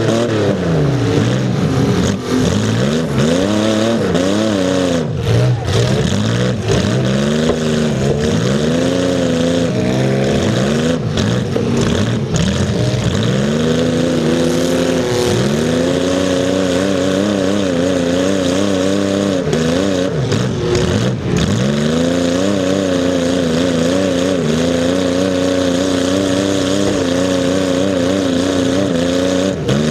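Demolition derby car's engine, heard from on its hood near its upright exhaust pipes, revving up and falling back again and again as the car drives, then holding a steadier speed for the last several seconds.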